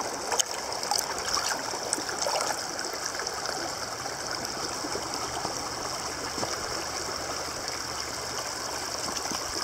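Creek water running steadily over rock, an even hiss of flowing water, with one short knock about half a second in.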